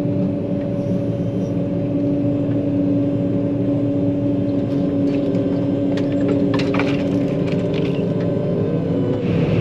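John Deere 9500 combine running steadily under load, heard from inside the cab as a loud, even hum with held tones. A scatter of sharp clicks and crackles comes about halfway through, and the hum's pitch shifts slightly near the end.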